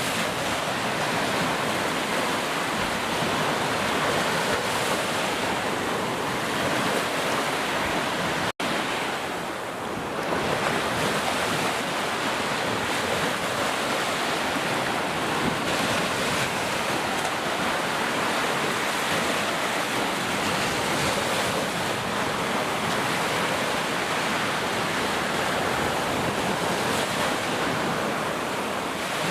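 Heavy rain falling steadily, with a split-second cut to silence a little over eight seconds in.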